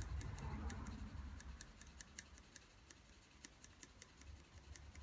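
Graphite pencil shading on drawing paper: quick, short back-and-forth strokes that come through as faint, rapid ticking scratches, worked up against a second pencil held flat as a straight edge.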